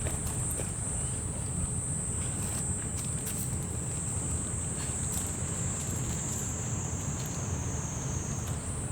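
Crickets chirping in a steady, high-pitched chorus over a low, steady rumble.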